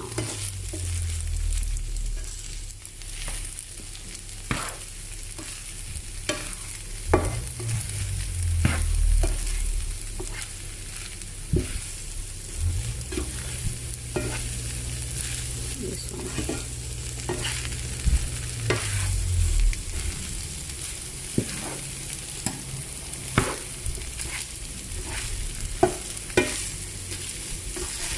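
Fried rice sizzling in a frying pan while a spatula stirs and tosses it, with frequent sharp knocks and scrapes of the spatula against the pan over a steady hiss.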